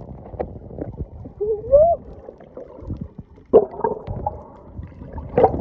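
Underwater sound picked up by a snorkeler's camera: muffled gurgling and bubbling with irregular dull knocks, the loudest about three and a half and five and a half seconds in. About a second and a half in there is a short rising muffled tone.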